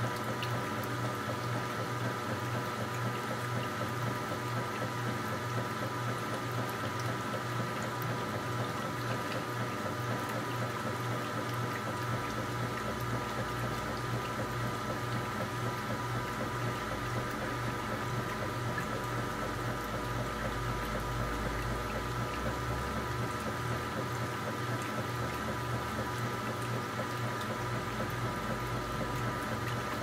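KitchenAid top-loading washing machine agitating a load: water and clothes sloshing steadily as the agitator swings back and forth, with the machine running over a constant hum from its frequency converter.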